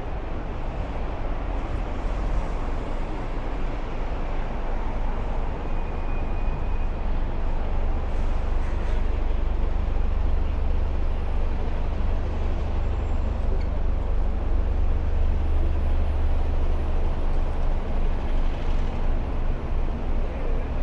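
City street traffic dominated by a heavy vehicle's low engine rumble nearby, which grows a little louder partway through.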